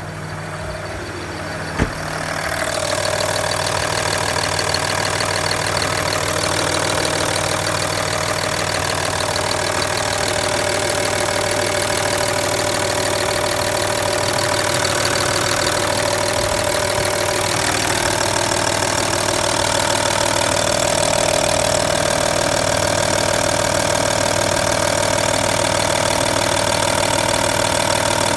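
Audi 2.5 TDI V6 diesel engine (AYM) idling steadily, heard up close in the engine bay; it grows louder about two seconds in, after a single click.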